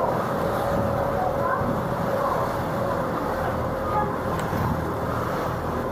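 Tour boat's engine running steadily, a constant hum with a held tone, with faint voices in the background.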